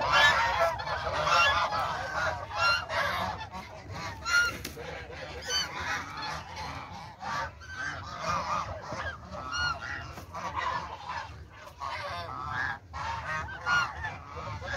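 A flock of penned domestic geese honking, many calls overlapping one another, loudest in the first couple of seconds.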